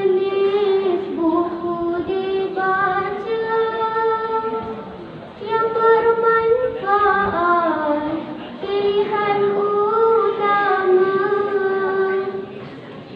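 A girl singing solo into a microphone, holding long notes in phrases, with short breaks between phrases about five seconds in, about eight seconds in and near the end.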